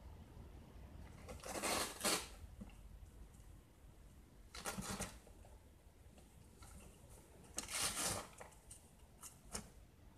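Kitten chewing and tearing at the edge of a cardboard box: short, crisp ripping and crunching bursts, three main ones about three seconds apart, with a few smaller ones near the end.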